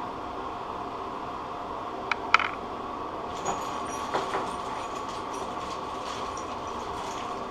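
Steady background hum, with a few light clicks about two seconds in and again a little later as small metal washers and rubber gaskets are fitted onto a toilet tank bolt.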